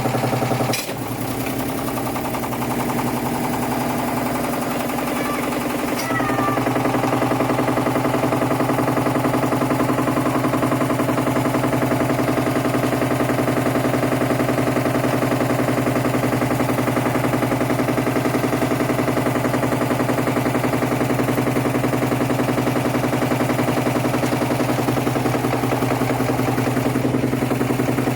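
Hotwired washing machine motor spinning the drum, a steady machine hum. A sharp click about a second in is followed by a brief dip, and from about six seconds in it runs louder and steady.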